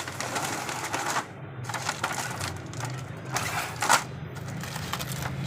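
Packaging and toys handled during an unboxing: crinkling rustle in several bursts, with sharp clicks and clacks, the loudest just before the four-second mark.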